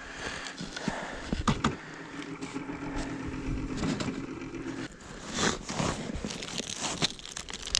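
Steady hum of a Lowrance LFP-160 flasher depth finder running, cut off suddenly about five seconds in. After it, a plastic zip-top bag crinkles as bait containers are handled.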